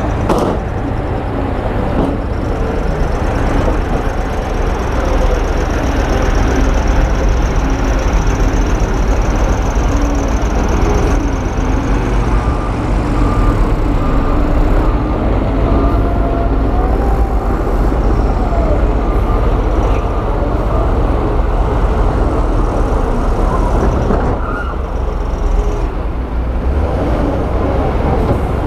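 Heavy diesel construction machinery running: a loud, steady engine drone whose pitch drifts up and down as the engines work, with a thin high whine heard at times.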